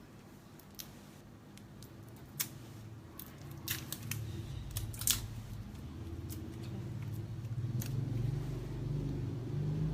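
A small cosmetics package, a tinted lip balm, being opened by hand: several sharp clicks and crackles of its packaging, over a low handling rumble that grows louder in the second half.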